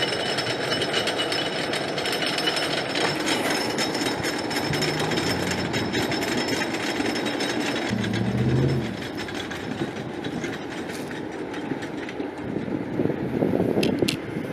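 Roller coaster train climbing a chain lift hill, the anti-rollback dogs clattering in rapid, continuous clicks. It gets quieter about nine seconds in.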